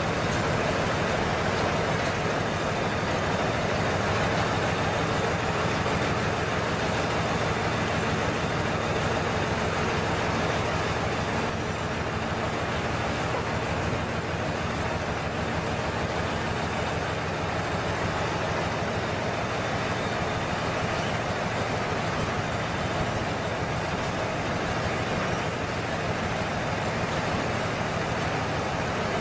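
Heavy truck engine running steadily, with a constant low rumble and noise and no sharp events.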